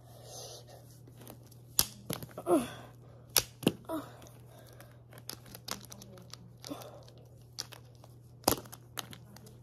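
Plastic wrestling action figures being handled and knocked together: a few scattered sharp clacks, the loudest near the end. There are also a couple of brief voice sounds about a third of the way in.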